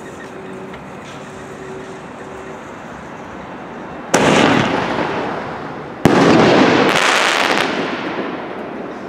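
A Pro Fireworks Hammer consumer artillery shell fires from its mortar tube with a loud bang about four seconds in. About two seconds later the shell bursts overhead with a sharp crack and a second loud blast, which echoes and fades over the next few seconds.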